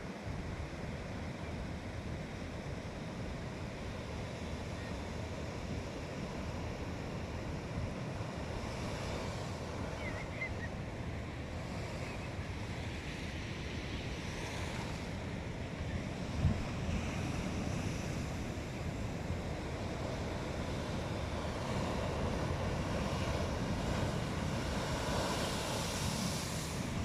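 Sea waves surging and breaking on the shore in a steady roar, swelling several times and building near the end, with wind buffeting the microphone. A single brief thump about two-thirds of the way through.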